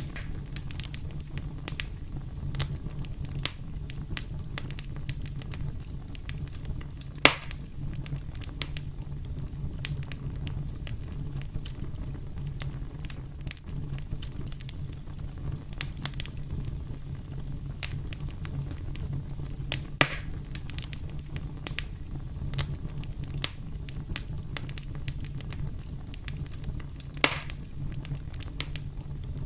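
Campfire crackling: a steady low rumble of flames under frequent small crackles, with three louder pops about a quarter of the way in, two-thirds in and near the end.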